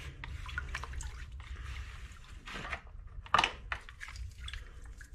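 Water dripping and light splashing with small metal clicks as rust-soaked steel nuts are handled in a bowl of citric acid solution. One sharper, louder knock comes about three and a half seconds in, over a low steady hum.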